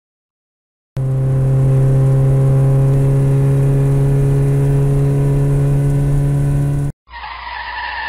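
A speeding car's engine running loud at a steady pitch, starting about a second in, then cut off abruptly. Just before the end, tyres squeal as the car brakes hard and skids.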